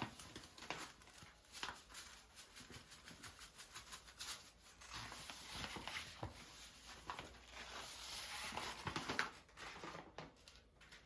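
Irregular rustling and light clicks of things being handled, fairly quiet, thinning out near the end.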